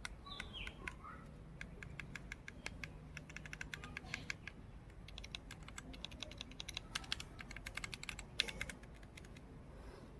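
Keys typed rapidly on a Portronics Hydra 10 mechanical keyboard, in runs of sharp clicks with short gaps. The single loudest click comes a little past eight seconds in. A short falling whistle-like tone sounds in the first second.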